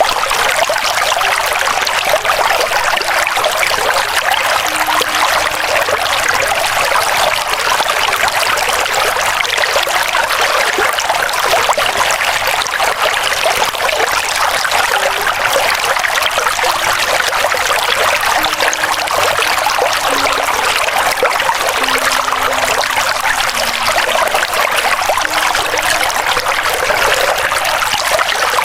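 River water flowing in a steady, even rush, with most of its sound high and little low rumble.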